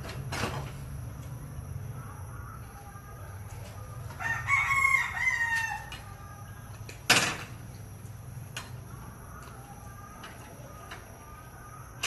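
A rooster crowing once, a call of about a second and a half, followed a couple of seconds later by a single sharp clack over a steady low hum.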